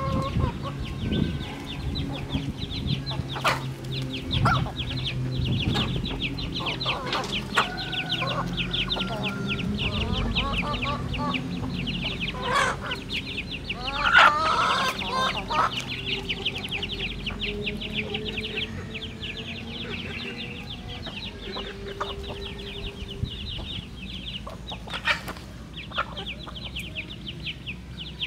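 Free-range chickens, hens and roosters, clucking low and softly while they peck and feed, with a louder call about 14 seconds in. A fast, steady high-pitched pulsing runs behind them through most of it.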